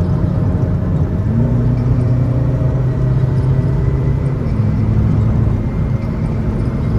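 Steady in-cabin drone of a Mercedes-Benz car cruising at about 150 km/h: low engine hum under tyre and wind noise, with the engine note rising slightly a little over a second in.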